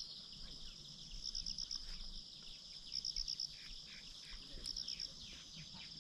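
Insects trilling in a faint outdoor chorus: a steady high buzz, with a louder short pulsed chirp repeating about every one and a half to two seconds. Many faint short falling chirps are mixed in around the middle.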